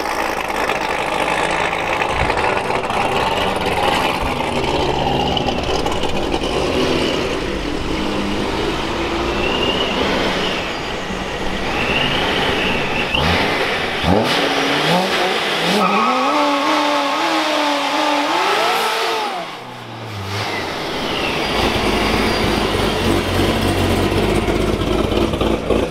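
Modified Corvette C7 Z06's supercharged V8 running, then revving hard with the pitch rising in steps about halfway through. Near the end the engine holds high revs with tyre noise as the car does a burnout.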